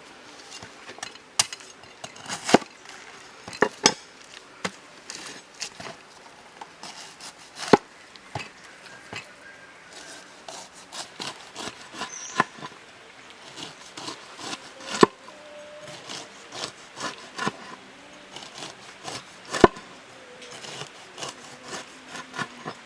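Irregular knocking and scraping on wood, with a handful of sharp, louder strikes scattered through it.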